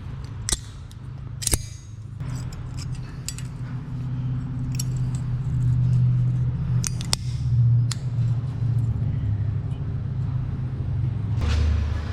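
Sharp metallic clinks of brake parts being handled, half a dozen separate clicks, over a steady low vehicle rumble that swells in the middle.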